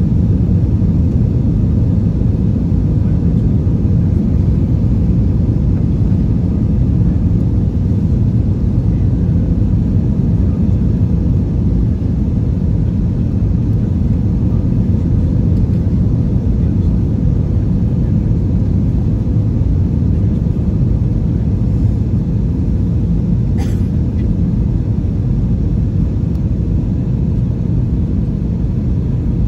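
Steady low rumble of an Airbus A321 airliner, its engines and airflow heard from inside the passenger cabin.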